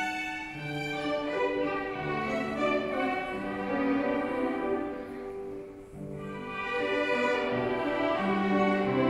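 Ensemble of children's violins playing a melody together with an adult violinist, notes changing about every half second. The playing thins and drops briefly about six seconds in, then comes back louder.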